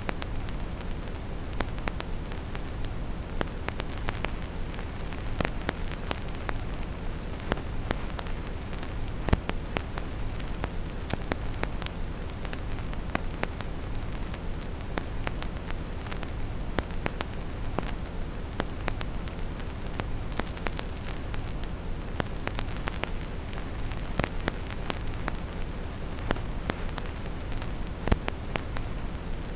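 Vinyl record surface noise: irregular clicks and pops of a stylus in the groove, several a second, with no music, over a steady deep brown noise.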